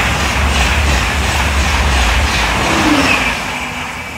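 TGV Atlantique high-speed train running through a station at speed close by: a loud rush of air and wheel noise with a quick rhythmic clatter. It begins to fade a little after three seconds in as the train moves away.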